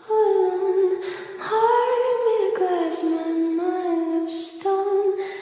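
A high voice singing slow, held notes in phrases about a second long, with short breaks between them: a song used as background music.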